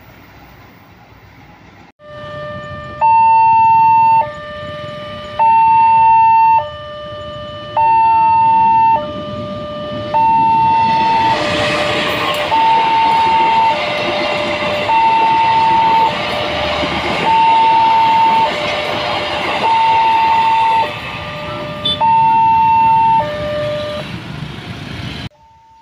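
Electronic railway level-crossing alarm sounding two alternating tones, high then low, each held about a second, starting suddenly about two seconds in. From about ten seconds in a freight train rumbles through the crossing under the alarm. The alarm stops shortly before the barrier lifts.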